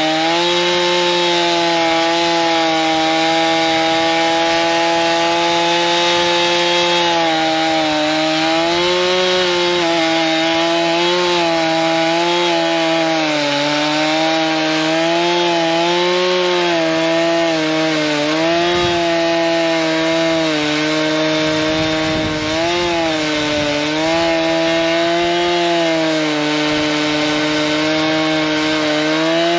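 STIHL two-stroke chainsaw running at high revs while cutting willow wood. Its engine note holds steady at first, then from about a quarter of the way in it repeatedly dips and recovers as the chain loads up in the cut.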